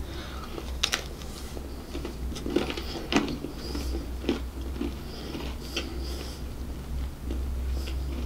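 Close-miked bites into the flaky pastry crust of a chicken and mushroom pie, then chewing, heard as a scatter of sharp crackles and wet mouth sounds. A low steady hum runs underneath.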